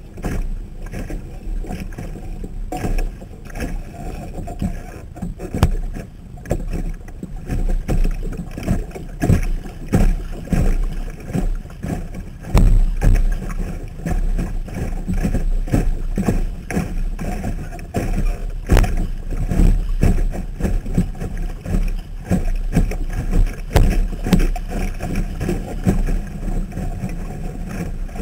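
Lake water splashing and slapping irregularly against the hull of a Sunfish sailboat under way, picked up by a waterproof camera mounted on the boat, with a steady low rumble underneath.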